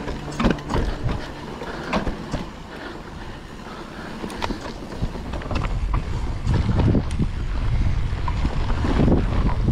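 Mountain bike rolling fast down a dirt forest singletrack: tyres on dirt, with scattered knocks and rattles from the bike over roots and bumps. Wind rushing on the microphone grows louder over the second half as speed picks up.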